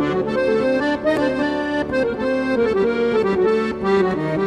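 Instrumental background music, an accordion playing a melody over sustained lower notes.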